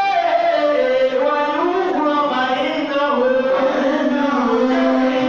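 A man chanting in long, held melodic lines that glide slowly up and down, with hardly a break.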